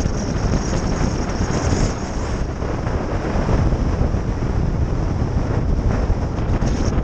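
Wind buffeting the microphone of a cyclist's action camera on a fast downhill descent: a loud, steady rushing noise, heaviest in the low end.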